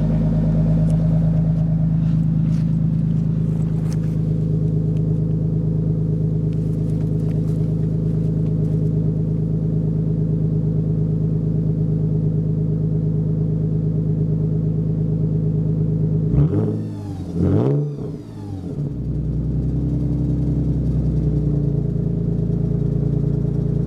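Dodge Intrepid's 2.7-litre V6 running at idle after a cold start. About 17 seconds in, its pitch dips and comes back up twice, then it settles back to a steady idle.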